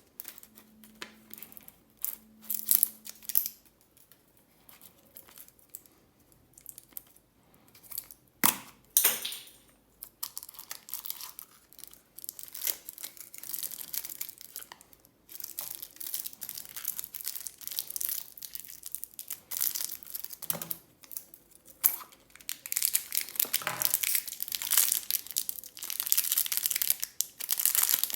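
Plastic candy wrappers and packaging crinkling and tearing open in irregular spells, with a sharp loud crackle about nine seconds in and steady dense crinkling in the last six seconds.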